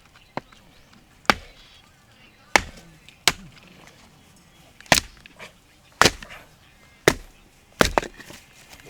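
Firewood being chopped or split: about eight sharp, separate strikes of a blade into wood, irregularly spaced.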